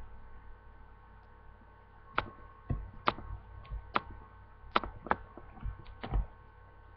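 A string of about nine light, sharp clicks and taps over about four seconds, starting about two seconds in, from small hard-plastic Littlest Pet Shop figurines being handled. A faint steady electrical hum runs underneath.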